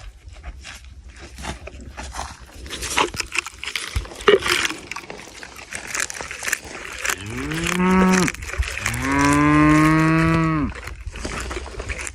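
Camel chewing with scattered crunching and clicking sounds, then two drawn-out moaning calls, the second one longer, each rising at the start and then holding a steady pitch.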